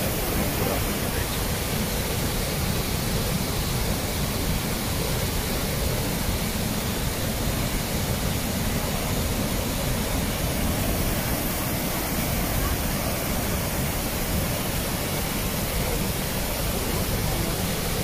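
Steady, unbroken rushing of a large waterfall, Iguazu Falls: a constant even noise with no changes.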